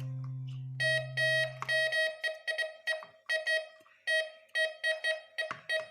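MD 4030 metal detector giving repeated short beeps, about three a second, after a low steady hum that stops about two seconds in. These are false signals that the owner puts down to a loose, moving cable, and they are still there with the cable taped down.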